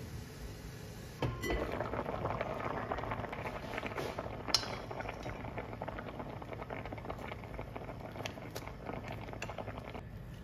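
Pot of cubed potatoes at a rolling boil, the water bubbling and crackling, with a metal spoon clinking in the pot about four and a half seconds in.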